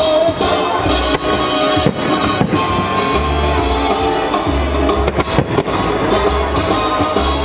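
Aerial fireworks shells bursting with sharp bangs, several spread through and a quick cluster a little after five seconds in, over loud instrumental music with drums played with the show.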